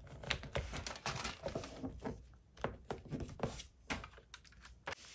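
Paper envelopes and cardstock rustling and crinkling, with irregular small clicks and taps as the layers are handled and pressed flat.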